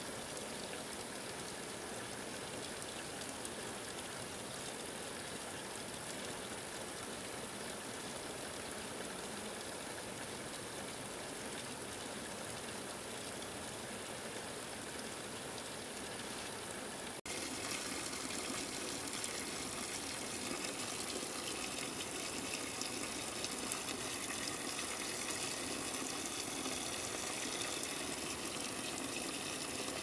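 Steady rushing of water, an even hiss with no distinct drops or knocks. A little past halfway it abruptly becomes louder and brighter.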